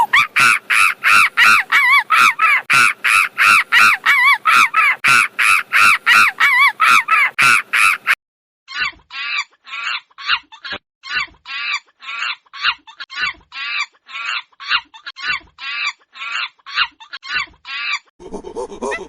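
A monkey screaming in a fast run of shrill, repeated calls, about three a second, each call rising and falling in pitch. The run cuts off abruptly about eight seconds in, and after a short gap a second run of similar calls follows at a slightly slower pace. A lower-pitched call starts near the end.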